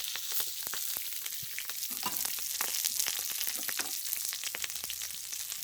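Food frying on a barbecue, with a steady sizzle full of fine crackles and spits of hot fat.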